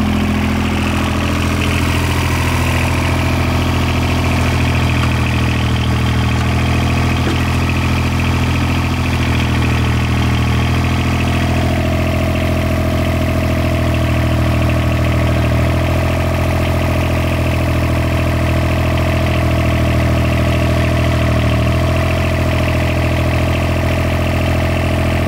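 John Deere 430 lawn tractor's three-cylinder diesel engine idling steadily.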